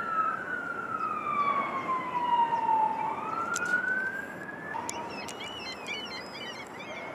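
Fire engine siren wailing in a slow sweep, falling in pitch and then rising again, cutting off abruptly about two-thirds of the way through. After it, many short high chirps, like small birds, sound over a steady traffic hiss.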